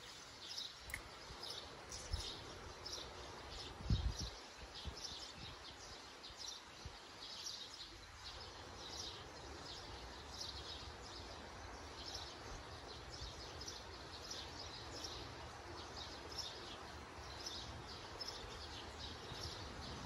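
Small birds chirping, short calls repeated again and again, over a faint low rumble, with one soft thump about four seconds in.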